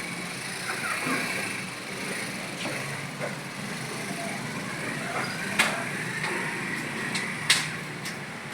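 Scattered computer keyboard key clicks over a steady background hum and noise, with two sharper clacks standing out, one about two-thirds of the way through and one near the end.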